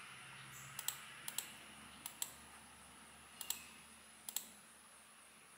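Computer mouse clicking: five quick double clicks, each a press and release, spaced about a second apart.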